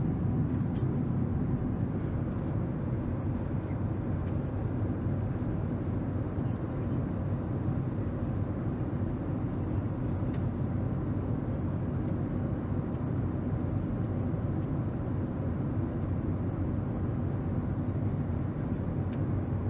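Steady, even rumble of a Boeing 767-300 jet airliner's cabin: engine and airflow noise, deepest in the low end.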